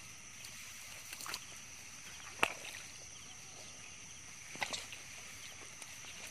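Steady high-pitched outdoor hum with a few sharp knocks or clicks, the loudest about two and a half seconds in and a quick pair a little past the middle.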